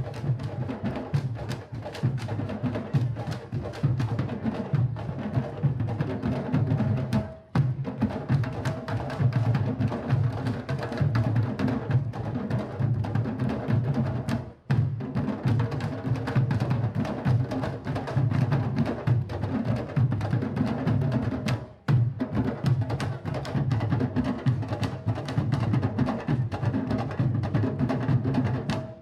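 Candombe drum ensemble of tambores played with stick and hand, a dense steady rhythm of deep drum strokes with sharp stick clicks. The rhythm briefly cuts out three times.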